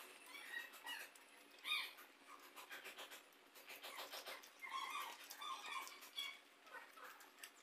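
Eating sounds: fingers mixing rice and chicken curry on a steel plate, with wet clicks and smacks of chewing. Short, high, squeaky animal calls come and go in the background, the loudest about two seconds in and again in the second half.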